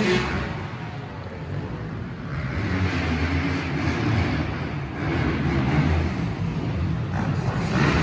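Dirt bike engine running under riding, with a rush of noise over it; it eases off about a second in and picks up again from about two and a half seconds.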